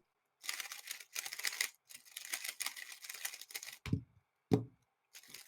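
Faint rapid plastic clicking and clattering, followed near the end by two short low thumps.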